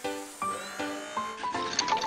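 Cartoon background music: a light melody of short plucked notes, one after another.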